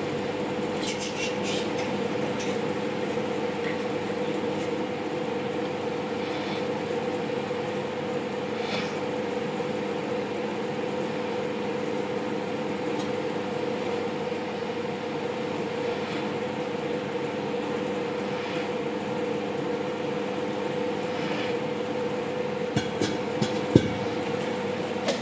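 Microwave oven running with eggs inside on its low 'soften and melt' setting: a steady hum. A few short clicks and knocks come near the end.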